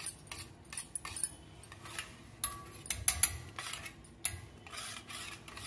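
Wire whisk stirring thick yogurt raita in a stainless steel bowl, its wires clicking and scraping against the metal in a quick, irregular run of strokes.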